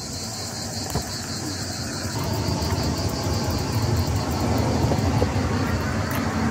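A steady low rumble that builds over the first couple of seconds, under a constant high chirring of insects, with a few faint clicks.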